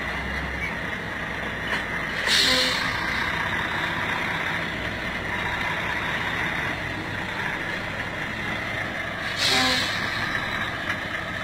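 Semi truck's diesel engine running steadily as the tractor-trailer creeps through a tight turn, with two short air-brake hisses, one about two seconds in and one near the end.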